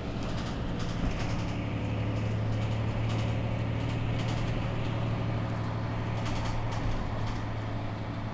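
Mercedes-Benz Citaro C2 city bus engine idling at a standstill: a steady low hum.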